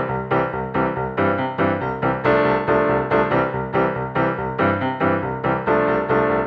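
Piano music with evenly struck notes and chords in a steady rhythm.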